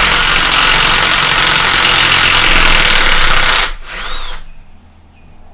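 Loud power tool run for nearly four seconds, with a dense hiss and a fast low chatter, then cut off. A short second burst follows with a whine that rises and falls.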